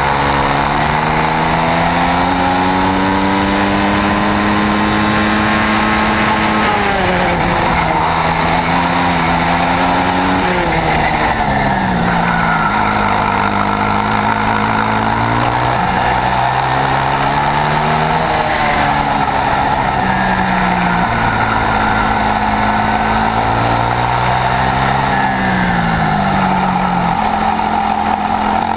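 Swissauto 250 twin-cylinder two-stroke kart engine running hard on track. Its note climbs steadily for about six seconds, then falls away and climbs again several times as the kart accelerates out of corners and slows into them.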